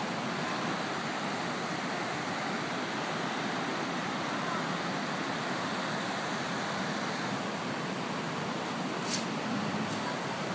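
Flood-swollen creek rushing steadily, a continuous even wash of fast-moving water, with a single faint click about nine seconds in.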